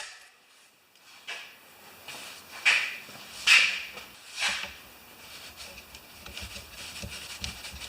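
Teflon tape being pulled off its roll and wrapped onto the threads of a pressure washer fitting: four short rasping scrapes about a second apart, then soft handling noise.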